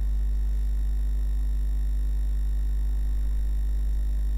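Steady electrical mains hum, a low drone with a thin buzz above it.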